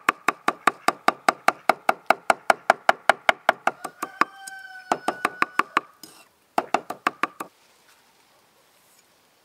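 Rapid, evenly spaced knocking, about five knocks a second, each with a short ring; it breaks off about six seconds in, returns briefly and then stops.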